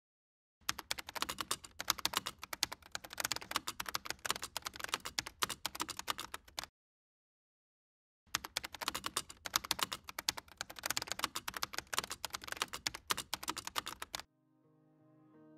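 Rapid computer-keyboard typing in two runs of about six seconds each, with a short pause between them. Soft music fades in near the end.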